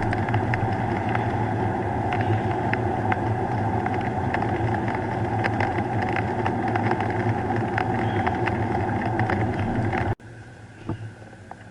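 Car driving: steady engine and road noise with scattered sharp ticks. About ten seconds in it cuts off abruptly to a much quieter hum.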